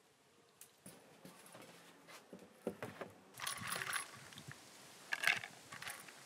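Clam shells clinking and knocking against one another and the clay pot as a hand washes them. The sound is a run of separate clicks, with louder clattering about halfway through and again near the end.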